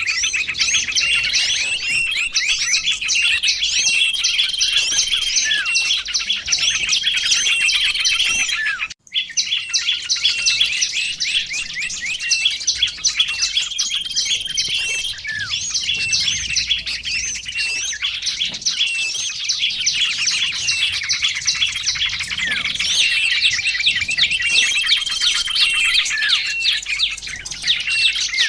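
Dense, continuous chirping and trilling of small songbirds, many rapid notes overlapping, from a bird-lure recording. It breaks off for a moment about nine seconds in, then resumes.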